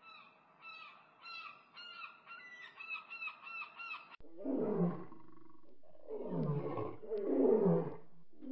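A flock of gulls calling, many short cries overlapping. About four seconds in, it cuts abruptly to a tiger roaring: three long, louder roars, each falling in pitch.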